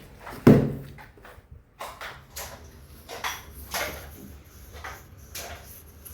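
A loud household thump about half a second in, then several softer knocks and shuffling sounds, such as doors or cupboards being handled.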